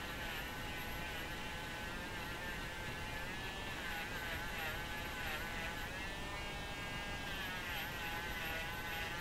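Handheld rotary tool spinning a small wire-wheel brush, its motor whine sagging and recovering in pitch several times as the brush is pressed against the external threads of a tap wrench to scrub out grit from crudely cut threads.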